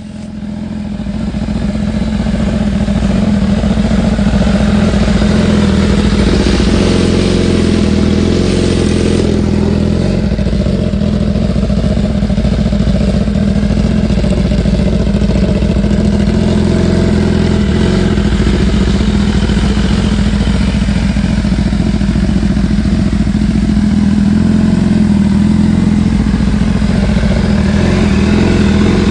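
2017 BMW S1000RR inline-four engine with a full Akrapovič exhaust and Brentune stage 3 tune, running steadily at one engine speed and fading in at the start.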